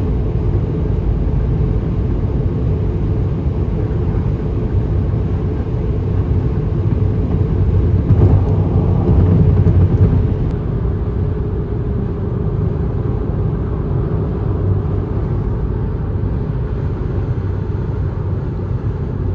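Steady road and engine rumble inside a car's cabin at highway speed. It swells a little about eight seconds in and eases again after ten.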